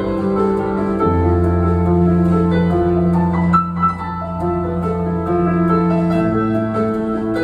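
Live rock band playing an instrumental passage, led by held keyboard chords that change every few seconds.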